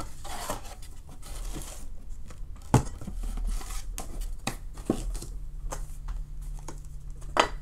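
Hands rustling through crinkle-cut paper shred filler in a cardboard box, then several sharp knocks as a plastic-packaged puzzle and a card are set down on the table. The loudest knock comes a little under three seconds in, and a faint steady low hum runs underneath.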